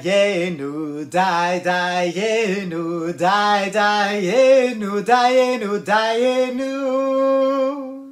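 A man singing a short unaccompanied tune in phrases, ending on a long held note that cuts off abruptly.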